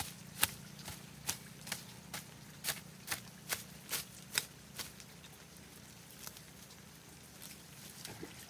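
Garden hoe chopping into soil and weeds, about two strikes a second for the first five seconds, then only a few scattered knocks.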